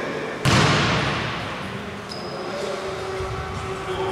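A basketball bounced on the wooden court about half a second in, with a long echo in the large gym that fades over a couple of seconds.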